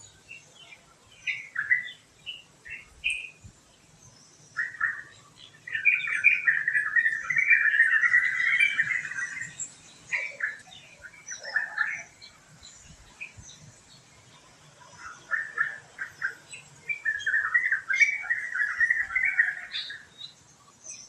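Tropical forest birds singing and chirping: scattered short notes, with two long, dense song phrases, one from about six to nine seconds in and another from about seventeen to twenty seconds in.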